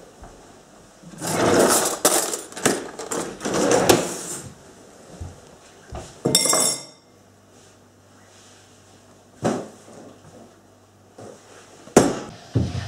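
Kitchen handling noises: irregular clattering and knocking for a few seconds, then a ceramic bowl set down on a wooden table with a short ringing clink about halfway through, followed later by a couple of single sharp knocks.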